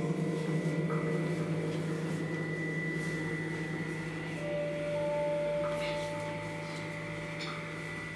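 Singing bowls ringing in long sustained tones: a deep wavering hum underneath, joined by two higher, clear bowl tones entering about four and five seconds in.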